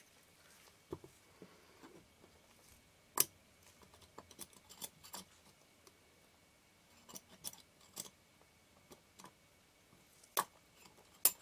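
Scattered small clicks and taps of metal lens parts being handled and fitted together, with one sharp click about three seconds in and several more near the end.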